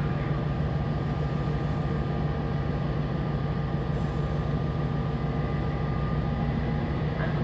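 FS D445 diesel locomotive idling at the head of a standing train, its engine running steadily at a constant pitch.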